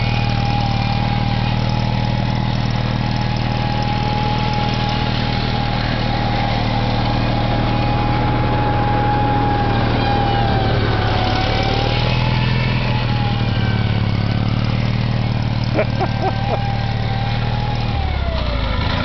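M274 military mule's engine running steadily as it drives over sand, with a thin whine that wavers and falls in pitch near the end. A few sharp knocks about sixteen seconds in.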